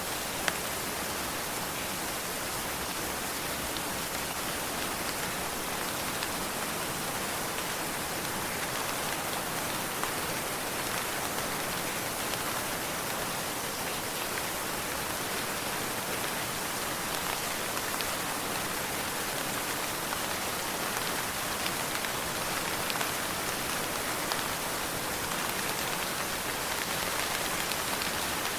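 Steady rain falling, a continuous hiss with scattered individual drops ticking through it; no thunder.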